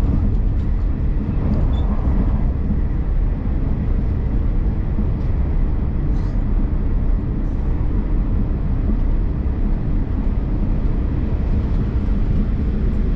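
Steady low rumble of a KTX-Sancheon high-speed train running at speed, heard from inside the passenger cabin.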